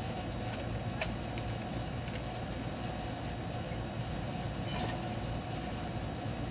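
Steady low mechanical rumble with a couple of faint clicks.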